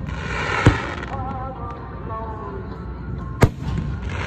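Two aerial firework shells bursting with loud, sharp booms, under a second in and again about three seconds later, each followed by a short rumble.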